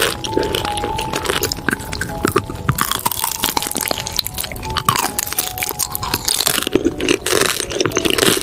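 Close-up chewing of crunchy food: irregular crisp crunches and crackles from biting and chewing, over a faint background melody.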